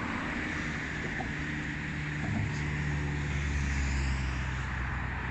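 A steady low engine drone with a hiss over it.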